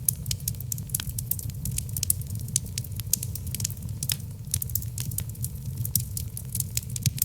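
Wood logs burning in a fireplace, crackling with many sharp little pops, several a second, over a low steady rumble of the fire.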